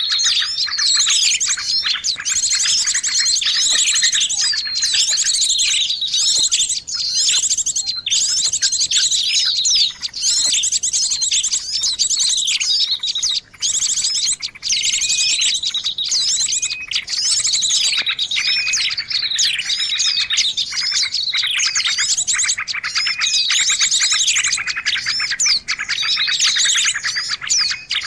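Small songbirds chirping and trilling without pause, quick high-pitched notes overlapping in a dense run. This is recorded birdsong of the kind played to lure birds in.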